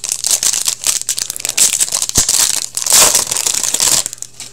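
Foil trading-card pack wrapper being torn open and crinkled by hand, a dense run of crackling that stops about four seconds in.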